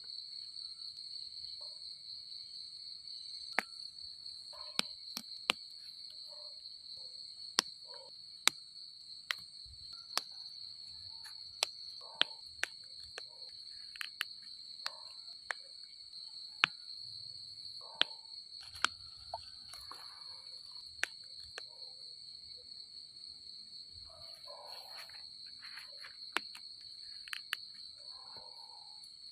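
A steady high-pitched chorus of night insects trilling, with scattered sharp clicks and soft rustling from hands picking mushrooms out of the soil.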